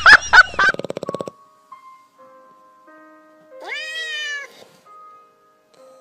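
High-pitched squealing animal cries from a puppy tussling with another small furry animal, cut off about a second in. Then, after a pause with a few faint steady tones, a pet gives one long meowing call that rises and then falls, about four seconds in.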